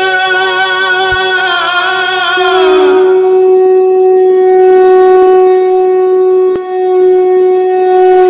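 Background music led by a wind instrument: long notes with a wavering vibrato, a slide down in pitch about two and a half seconds in, then one steady held note.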